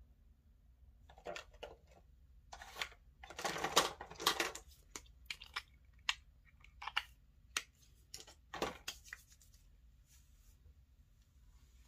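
Close handling sounds: a plastic cream tube with a flip-top cap being opened and squeezed into a palm, heard as a run of short clicks and rustles from about a second in until near the end, loudest around four seconds in.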